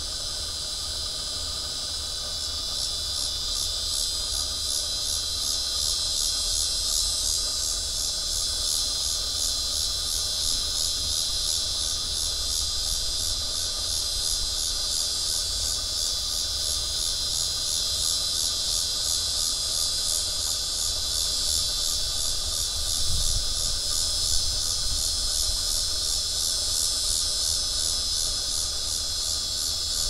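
Cicada singing a continuous high, pulsing buzz that swells over the first few seconds and then holds steady.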